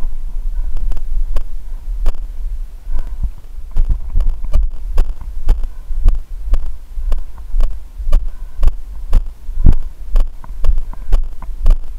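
Footsteps on a dirt trail, about two a second, thudding through a body-worn camera over a steady low rumble.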